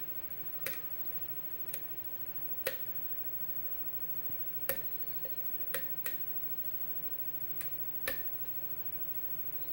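Lock pick and pin tumblers in a Sargent lock cylinder clicking as pins are lifted and set during single-pin picking: about ten sharp, irregularly spaced clicks. The picker feels he may be oversetting pins.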